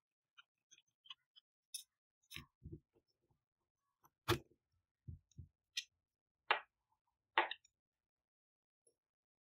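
Handling noise from angle grinder parts: scattered light clicks, then a series of separate knocks and low thuds as the metal spindle flange and aluminium gear housing are handled and moved on a hard tabletop. The loudest knocks come in the second half.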